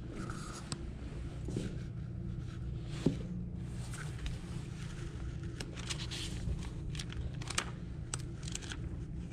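Handmade books and journals being handled and tipped forward: soft scraping and paper rustling with scattered clicks and one sharper knock about three seconds in, over a steady low room hum.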